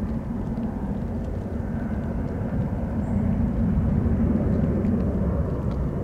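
Embraer ERJ-195 jet airliner's turbofan engines heard as a low, steady rumble that swells slightly about halfway through.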